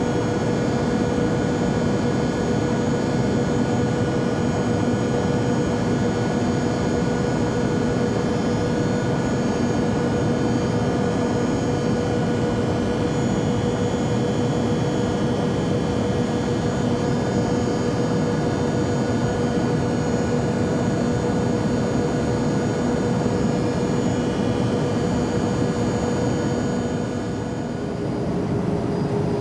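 Steady airplane engine drone: an even rushing noise with several constant hums over it. Near the end it dips briefly and the main hum settles slightly lower in pitch.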